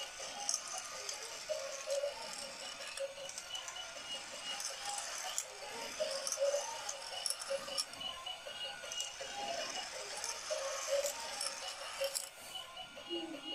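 Battery-powered toy racing car track running: small plastic cars rattling along the track and up the motorized lift, with many quick clicks over a steady whir.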